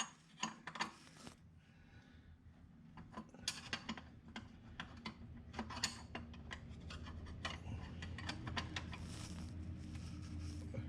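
Clicks, light metal knocks and scraping from hand tools and parts being handled during a tractor oil filter change, some clicks in quick runs. A low steady hum grows louder through the second half.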